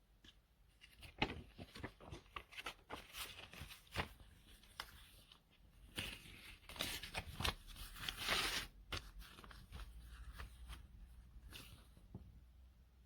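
Handling noises: an irregular run of clicks, taps and short crinkling rustles, like packaging or a small object being handled, with the loudest rustle about eight seconds in.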